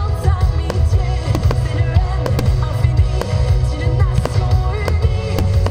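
Loud music with a heavy bass line, with the sharp pops of fireworks going off now and then over it.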